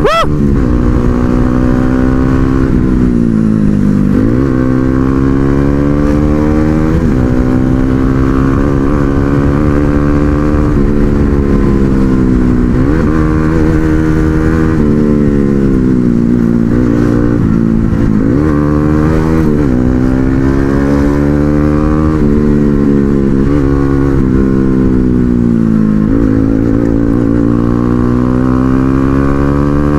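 Motorcycle engine heard from on board while riding, its pitch climbing and dropping again and again as the bike accelerates and shifts through the gears.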